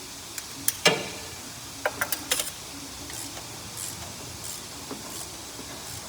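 Hand tools clinking against metal while working on an engine: a few sharp clinks, the loudest ringing briefly about a second in, then a quick cluster of clicks around two seconds in, followed by faint light ticks.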